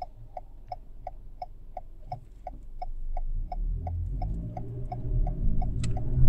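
Car's turn-signal indicator ticking steadily, about three ticks a second. A low rumble of the engine and tyres grows from about halfway as the car moves off.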